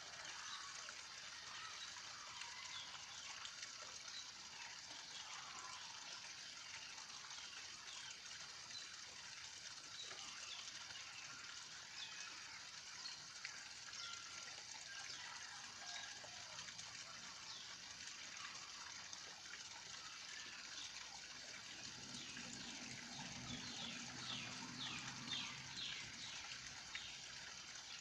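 Faint outdoor ambience: a steady hiss with small bird chirps scattered through it. Near the end comes a run of about eight quick repeated high bird notes over a low hum.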